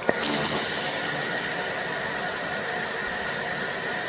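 Handheld laser welder firing with wire feed, laying a smooth bead: a steady hiss with high, thin whining tones that switches on suddenly just after the start.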